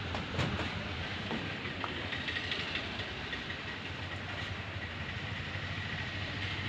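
Steady machine rumble with a faint high whine running through it, and a few light clicks near the start.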